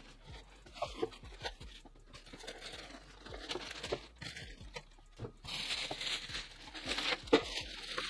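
Plastic bag and foam packing crinkling and rustling, with scattered light knocks, as a PC case is lifted out of its packaging and unwrapped. The rustling becomes louder and denser about five seconds in.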